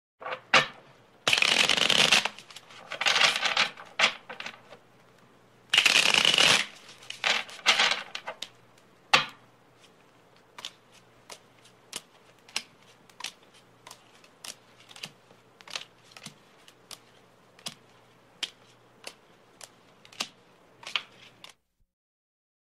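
A deck of playing cards being riffle-shuffled on a table: two dense whirring riffles, each about a second long, with shorter rustles and snaps between. Then a steady run of single sharp clicks, about one every two-thirds of a second, until the sound stops near the end.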